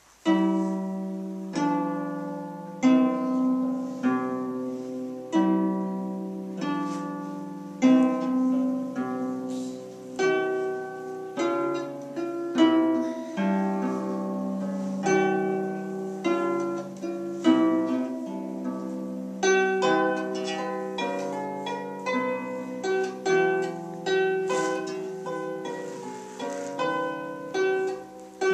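Lever harp played by hand: a tune of plucked notes over lower bass notes, each note ringing on and fading.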